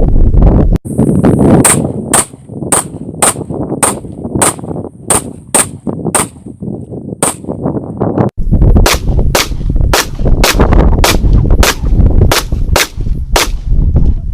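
Semi-automatic pistol firing shot after shot, about two a second, over a steady low rumble. The run breaks off abruptly twice, about a second in and just past the middle, as at a cut.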